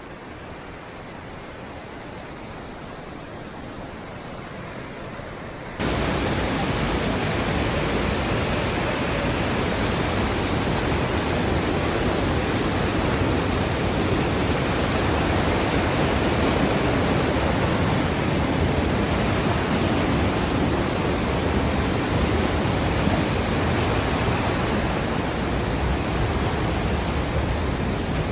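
Steady rush of water from a small mountain waterfall, a constant even hiss. It is duller and quieter at first, then jumps suddenly louder and brighter about six seconds in.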